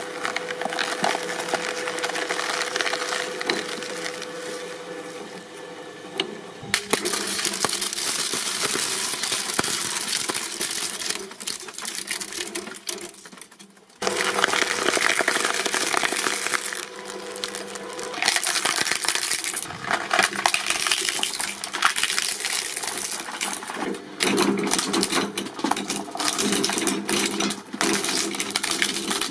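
Things being crushed under a press: dense crackling, crunching and snapping, in several separate clips that cut abruptly about 7 s and 14 s in.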